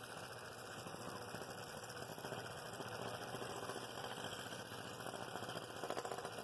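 Scroll saw running with a No. 2 blade, cutting around a glued-up maple and walnut-aspen ring: a steady, rapid buzz of the reciprocating blade working through the hardwood.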